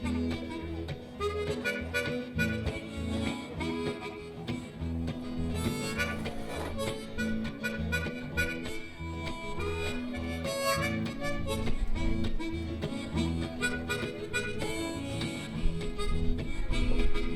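Live blues band playing an instrumental passage, with a harmonica carrying the lead over electric bass and guitar.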